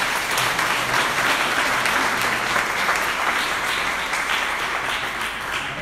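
Audience applauding: many hands clapping together in a steady patter that eases a little near the end.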